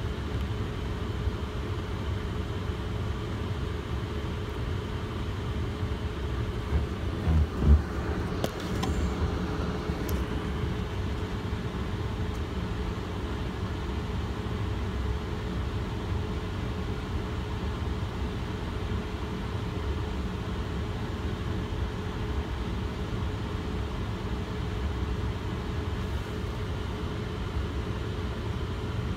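Steady low rumble of a vehicle, heard from inside a car, with a faint steady hum and a couple of dull knocks about seven seconds in.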